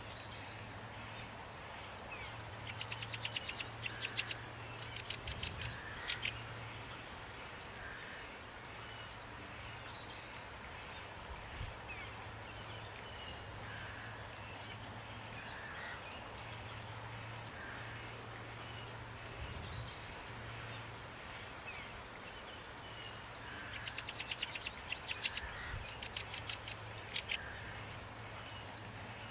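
Birds chirping and singing over a steady hiss of rain, with bursts of rapid trilling twice, about three seconds in and again near the end.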